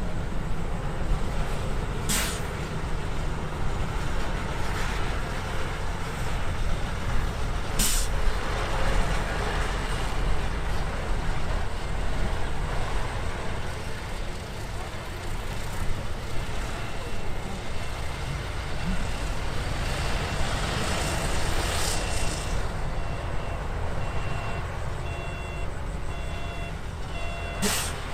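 Heavy diesel engines of a dump truck and bulldozers running steadily, with a short air-brake hiss four times. A reversing alarm starts beeping near the end.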